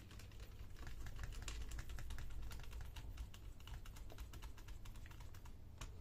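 Small screwdriver and gloved hands working on a laptop battery: a dense run of small clicks and ticks as the replacement battery is pressed into place and its retaining screws are driven back in.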